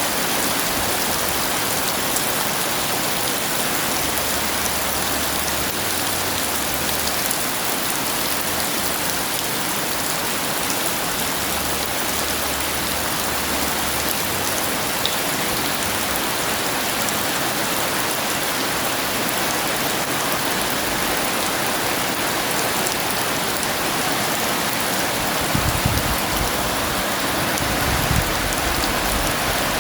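Heavy rain pouring steadily, with low thunder rumbles near the end.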